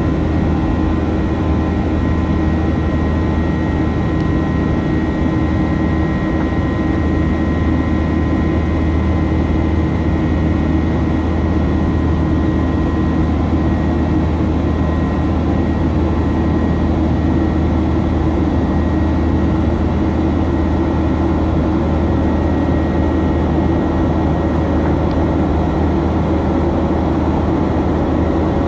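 Steady jet engine drone and rushing airflow inside the cabin of a Boeing 737-800 in flight, from its CFM56 turbofans: a constant deep rumble with several steady tones held over it.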